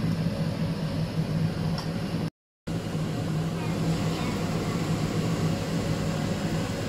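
Steady low hum with a hiss over it from a stovetop pot of soup coming to a rolling boil, broken by a short dead silence about two and a half seconds in.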